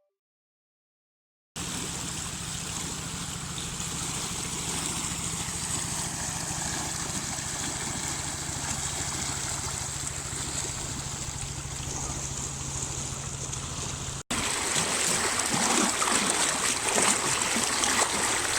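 River water rushing and splashing in a steady wash with a low steady hum underneath. Starts after a second and a half of silence, and after an abrupt change near the end it gets louder and more turbulent.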